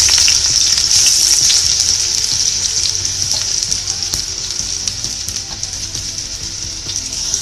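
Chopped ginger sizzling in hot oil in a stainless steel pot, loud at first and slowly easing off.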